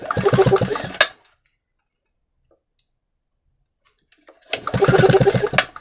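Recoil starter of a small 1 kW petrol generator pulled twice, about four seconds apart: each pull is a second-long whir with fast, even pulses as the engine spins over with its spark plug removed. It is being cranked for a spark test, and no spark shows.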